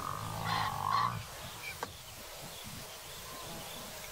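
African buffalo bellowing in distress as lions hang on it and pull it down: one drawn-out call lasting a little over a second, followed by a single sharp click.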